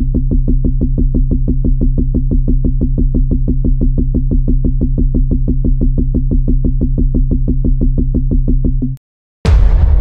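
Synthesized electronic sound effect: a steady low, buzzing drone pulsing evenly at about seven beats a second, which cuts off about nine seconds in. Near the end a loud sudden blast like an explosion starts and begins to die away.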